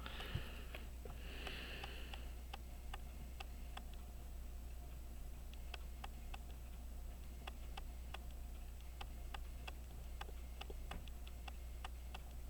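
Small irregular clicks and taps of tweezers and tiny metal watch parts being handled during assembly of a pocket watch movement, over a steady low hum. A couple of breaths through the nose in the first two seconds.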